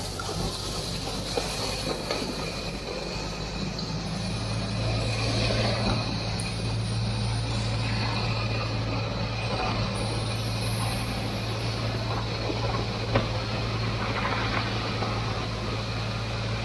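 TYM T574 compact tractor's diesel engine running steadily under load as it pulls a land plane along a driveway. A single sharp click sounds late on.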